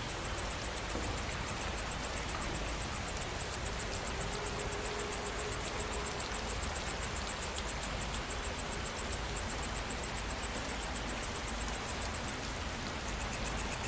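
Steady rain falling, with an insect calling high-pitched in a fast, even pulse throughout; the calling stops briefly near the end and then resumes.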